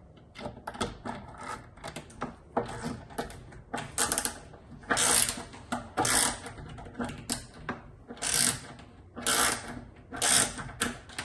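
Mini ratchet screwdriver handle being worked back and forth, its pawl clicking over the gear teeth. The clicks come in quick runs, with louder strokes about once a second in the second half.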